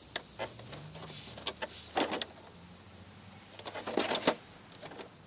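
Knocks and rattles of metal parts being handled while an air-conditioning unit is dismantled, with scattered single clicks and two bunches of clattering about two and four seconds in.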